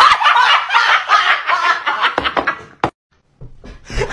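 Two young women shrieking with laughter, loud and high-pitched. The laughter cuts off with a click about three seconds in, followed by a brief silence.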